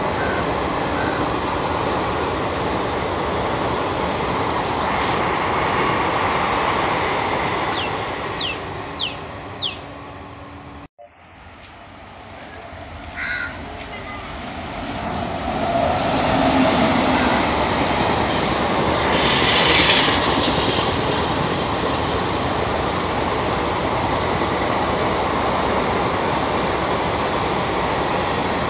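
Passenger coaches rolling past on the track with steady wheel-on-rail noise, and a bird calling four times in quick succession near the middle. After a sudden cut, a second express, hauled by a WAP-7 electric locomotive, approaches, growing louder, and its coaches run past.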